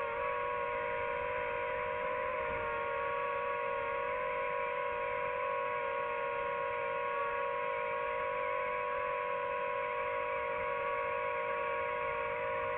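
DJI FPV quadcopter's motors and propellers running steadily in cruising flight, a held hum of several close pitches.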